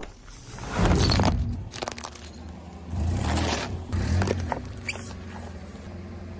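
Car running slowly with three loud bursts of crunching and scraping as objects are crushed under a tyre: one about a second in, then two close together around three and four seconds.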